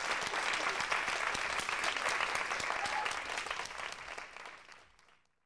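Audience applauding, fading away to silence over the last second or two.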